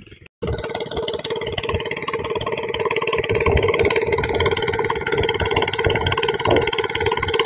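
Small single-cylinder gasoline engine running steadily, belt-driving a power sprayer pump, with a fast even firing beat and a steady hum.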